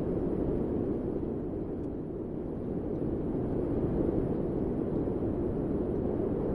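Wind blowing steadily as a low rushing noise that swells and eases slightly without a break.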